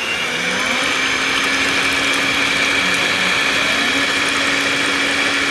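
Electric hand mixer on its stand running steadily at speed, its two beaters whisking a thin liquid mix of eggs, milk, oil and sugar: a steady motor hum with a high whine over it.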